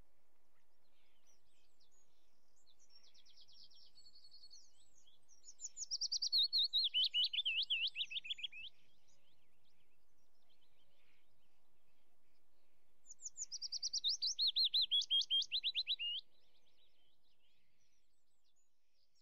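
A small songbird singing: faint chirps, then two rapid trilled phrases about seven seconds apart, each sliding down in pitch.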